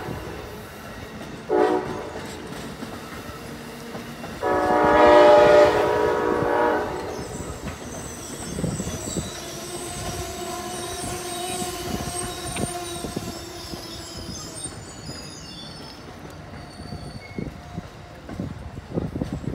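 Amtrak train's horn sounding a short blast, then a long blast of a few seconds. The train's coaches then roll past with clicking wheels and thin, steady high squeals that fade as the last car goes by.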